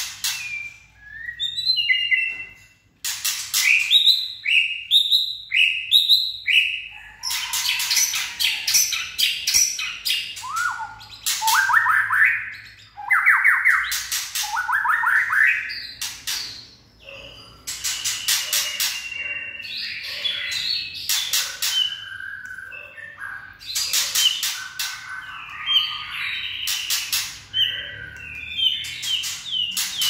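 White-rumped shama (chích chòe lửa) singing in full, peak-condition song: loud, varied phrases of rising, sliding whistles mixed with frequent sharp clicks, with short pauses between phrases.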